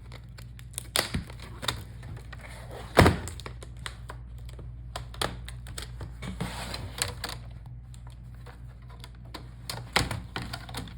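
Plastic clicks and snaps of a laptop's front screen bezel being pried off, its fragile retaining clips popping loose one after another, with a sharper crack about three seconds in and another near the end, over a steady low hum.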